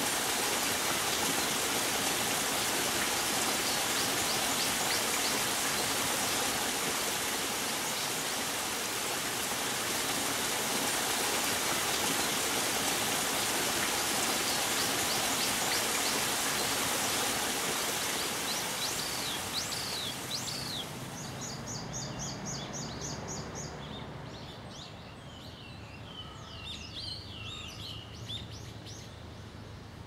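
Small woodland cascade of water splashing steadily over rocks, with faint high bird chirps over it. About two-thirds of the way through the water sound stops and small birds are heard alone: a quick run of repeated high notes, then varied chirps.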